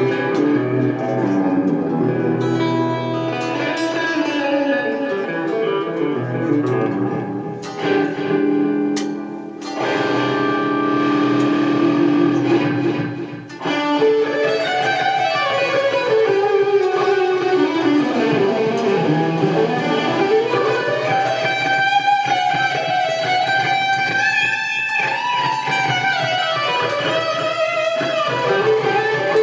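Guitar music played back through a Sony speaker. The lead guitar slides and bends its notes through the second half, after a brief dip about halfway through.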